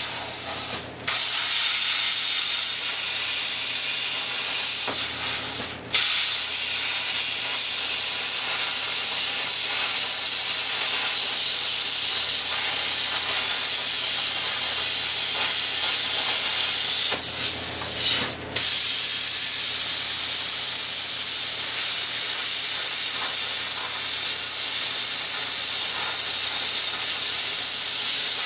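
Handheld plasma cutter cutting through steel plate: a loud, steady hiss, broken by three brief gaps where the arc stops and restarts, and stopping near the end.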